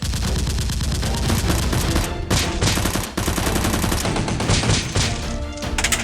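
Rapid, sustained gunfire: a dense stream of shots like automatic weapons in a firefight, over action background music.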